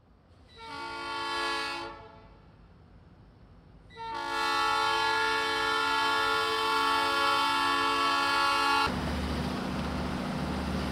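Diesel locomotive's air horn sounding a chord of several tones: a short blast of about a second, then a long blast of about five seconds that cuts off sharply. After that comes a steady low rumble with a background of noise.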